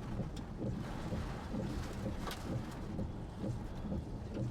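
Storm wind buffeting the microphone over rain: a steady low rumble with irregular gusts, and one sharp click about two seconds in.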